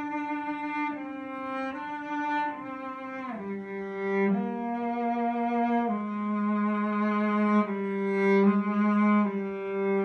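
Late-19th-century German cello played with the bow: a slow solo melody of long held notes, stepping down into a lower register about three seconds in.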